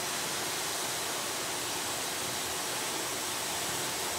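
A steady, even hiss from food cooking in a pan on the stove, with no crackles or clatter.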